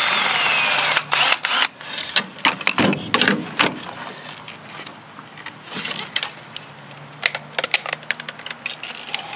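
Cordless drill runs for about a second, backing out a screw. Then comes a run of metallic clanks, clicks and rattles as the sheet-metal chassis of a battery backup unit and its circuit board are pried apart and handled.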